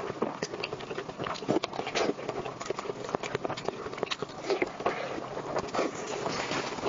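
Close-miked eating sounds: wet chewing and lip smacking, with squishing as a sauce-soaked piece of food is torn apart by hand. Many small irregular clicks follow one another quickly.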